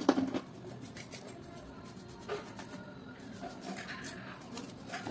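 A sharp knock at the start, then small clicks and rustles of a hand mixer's plastic and metal motor assembly being handled and dusted with a bristle brush.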